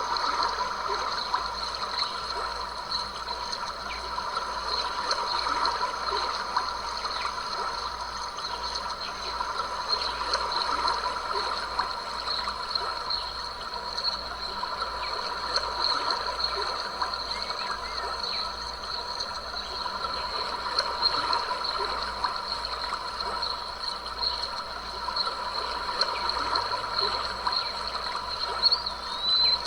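A small stream babbling and trickling steadily over stones, with a constant high-pitched hum above it and a brief rising chirp near the end.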